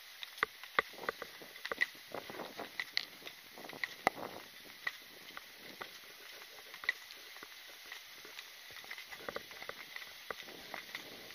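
A person walking, with irregular light clicks and rattles from the gear being carried, several a second, over a soft rustle of movement.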